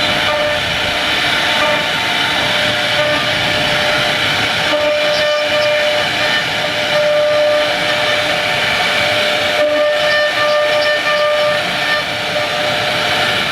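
CNC router spindle running with a steady high-pitched whine over a constant rush of noise as its bit cuts into wood.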